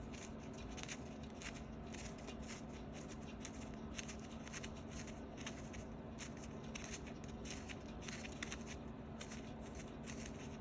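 Faint, irregular small clicks and scrapes of metal tools working on a motorcycle chain adjuster bolt in the swingarm, over a steady low hum.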